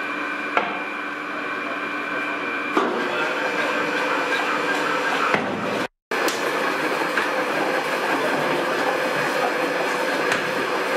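Grape-handling machinery in a winery press house running steadily, a hum with several held tones, as grapes are fed into the press hopper. A few sharp knocks come in the first half, and the sound cuts out for an instant about halfway.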